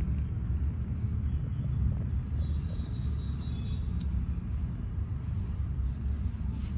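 Persian kitten purring steadily, a continuous low rumble.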